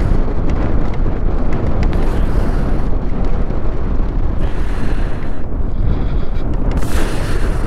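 Wind buffeting the microphone on a moving motorcycle: a heavy, steady rumble, with a few brief surges of hiss.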